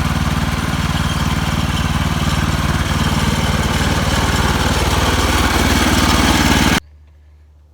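Woodland Mills HM130 Max portable bandsaw mill running hard, its gas engine and band blade sawing through a pine log. The sound cuts off suddenly near the end.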